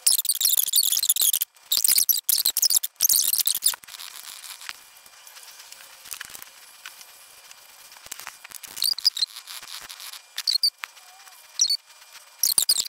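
Art tools stroking across sketchbook paper: loud scratchy squeaking for about the first four seconds, then quieter. Near the end come a few short high squeaks from an acrylic paint pen's nib drawing strokes on the paper.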